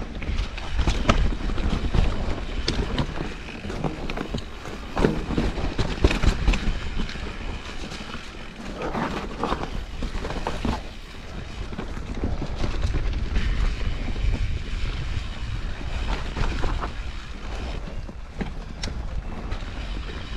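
Vitus Mythique 29 VRX mountain bike ridden down rough singletrack. Wind rushes over the microphone and the tyres roll on dirt, with repeated clatters and knocks as the bike rattles over bumps.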